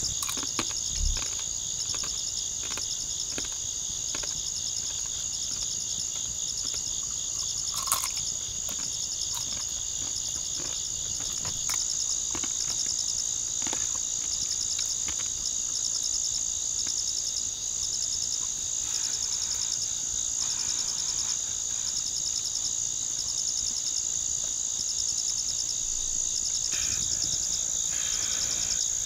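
Night insect chorus: a steady high-pitched trill with a faster pulsing trill a little lower, running without a break. Scattered sharp clicks sound over it, the loudest about eight seconds in.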